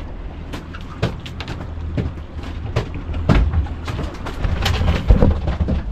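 Boat at idle offshore: a steady low engine rumble, with irregular knocks and bumps on the deck.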